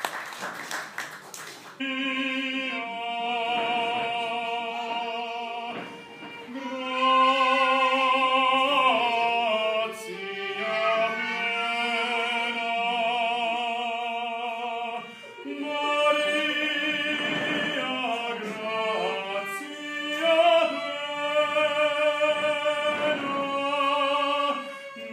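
A short burst of applause, then live violin and an operatic-style voice start together about two seconds in, holding long notes with vibrato in a slow classical piece.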